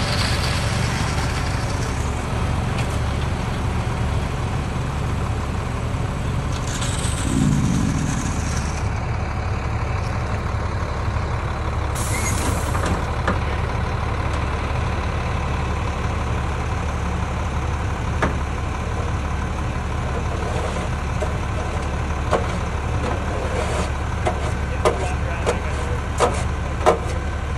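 Heavy truck and roller engines running steadily. There is a brief hiss about twelve seconds in, and a few sharp clicks near the end.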